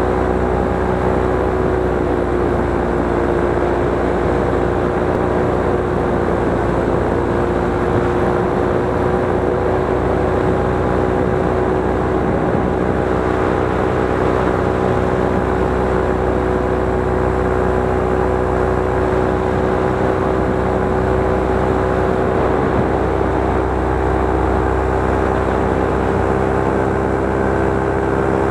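Multirotor drone's electric motors and propellers whirring steadily at an even pitch, heard close up from the onboard camera.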